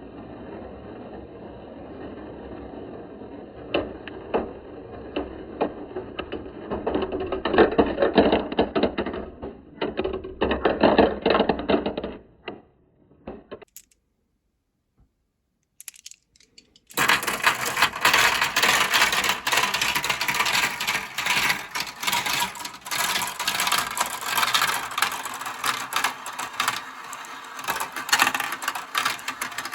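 Marbles rolling and clattering down a plastic marble-run slope: a dense run of small clicks and rattles. It drops out for a few seconds past the middle, then comes back brighter and busier.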